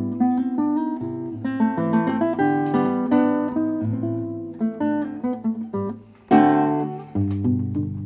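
1913 Hermann Hauser I nylon-string classical guitar played fingerstyle: a run of plucked notes and chords, a brief break about six seconds in, then a loud full chord and a second chord left ringing near the end.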